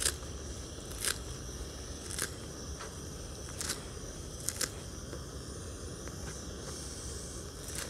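A knife chopping fresh cleavers (goosegrass) on a chopping board: a short, sharp click with each cut, irregular, roughly one a second, over a steady outdoor background hiss.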